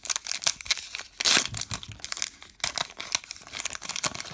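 Baseball card pack wrapper crinkling and tearing, a dense run of crackles with the loudest rip about a second and a half in.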